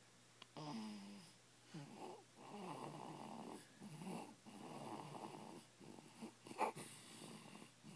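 Snoring in sleep: a string of snores on the breaths, some with a low buzzing pitch. A brief sharp sound, the loudest moment, comes about six and a half seconds in.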